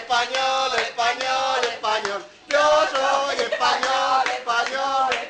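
A group of voices chanting together in long sung phrases, with a short break about two seconds in.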